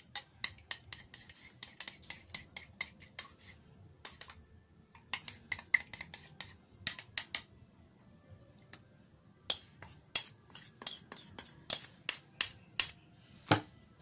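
A spoon beating eggs in a small bowl: quick runs of light clicks, about five a second, in several spells with short pauses, and one sharper knock near the end.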